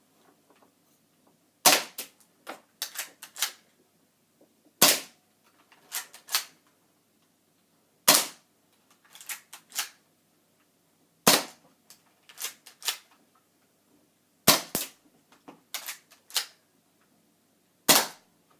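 Airsoft-style BB gun firing 6mm 0.25 g BBs: six sharp shots about three seconds apart, with two close together near the three-quarter mark, each followed by a few lighter clicks and taps.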